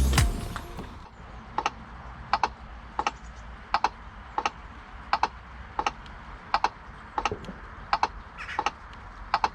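NIU NQi Sport electric moped's turn-signal indicator ticking at a steady rhythm, a short sharp click about three times every two seconds, starting a second or so in.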